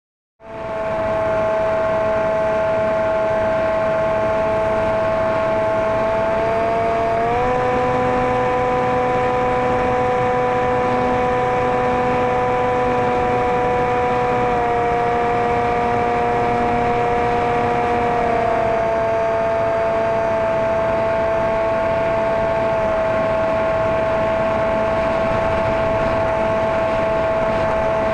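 Maxi Swift RC flying wing's motor and propeller whining steadily, heard from the onboard camera. It fades in at the start, rises in pitch with more throttle about a quarter of the way in, and eases down in two small steps past the middle.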